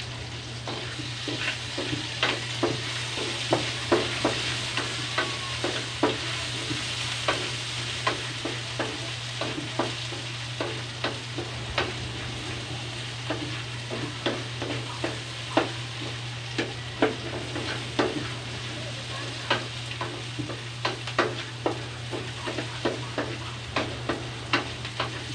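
Garlic, ginger and onion sizzling in rendered chicken-skin fat in a metal wok, stirred with a wooden spatula that knocks and scrapes against the pan many times, irregularly. A steady low hum runs underneath.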